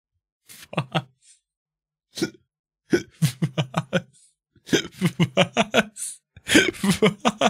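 A man laughing hard in several bursts of quick, pitched "ha" pulses, with short breaks between them.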